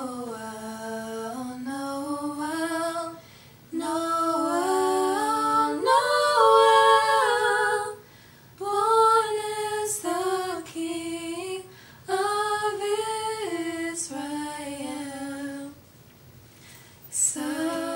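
Two women singing a Christmas carol a cappella, without instruments: held notes that step up and down in phrases, with short pauses for breath between them.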